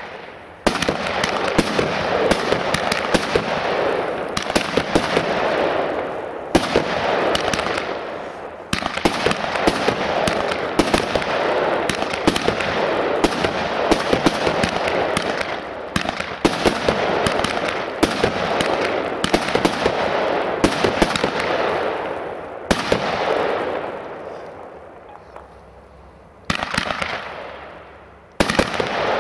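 Quattro firework compact (cake) firing: a dense, continuous crackling with many sharp pops, broken by short lulls every few seconds. It dies down briefly a few seconds before the end, then starts up again.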